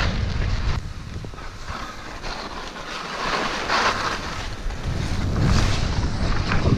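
Wind rushing over the microphone of a skier's camera while skiing fast, with skis swooshing through the snow. The wind drops about a second in, and there is a brief swoosh near the middle; it builds again toward the end.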